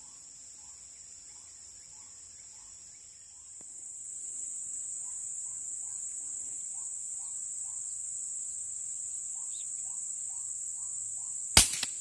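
Insects buzzing steadily at a high pitch while a bird calls in runs of short repeated notes, about two a second. Near the end comes a single sharp crack, the loudest sound: a shot from a Sharp Tiger multi-pump air rifle.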